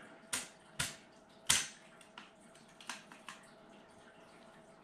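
Metal clicks and knocks from a Ruger Air Hawk break-barrel air rifle's barrel and action being wiggled into line at the hinge: three sharp clicks in the first second and a half, then a few fainter ones.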